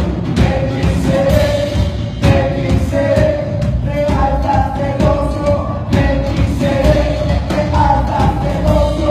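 Choral music, sustained voices singing over an accompaniment with a steady beat.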